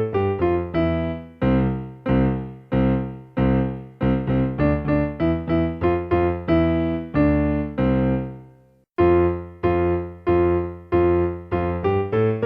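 Electronic keyboard with a piano voice playing a simple melody with both hands, one struck note or two-note pair at a time, each fading after it is played. Near the end the last note dies away into a brief silence, then the playing starts again.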